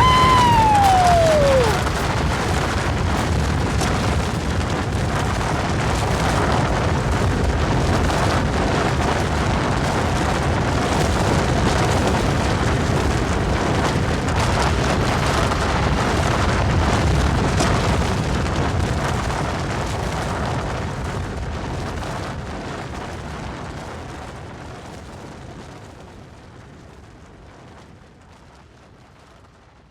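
Avalanche rumble sound effect: a dense, steady rumbling roar that holds for about eighteen seconds and then slowly fades out. Right at the start a shout trails off, falling in pitch.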